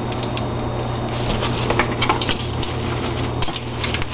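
Scattered light clicks and rustles of kitchen handling over a steady low hum.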